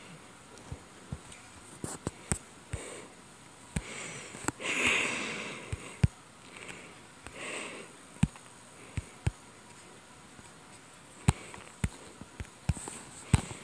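Irregular light taps on a tablet touchscreen as the drawing app is worked, with one loud sniff about five seconds in and a softer breath or sniff a little later.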